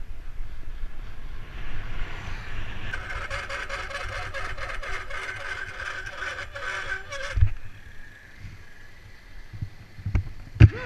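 BMX bike rolling fast down a paved road, with wind rumbling on the camera microphone. From about three seconds in, a high squeal with rapid ticking runs for about four seconds and ends with a thump. Things go quieter after that, with a few sharp knocks near the end.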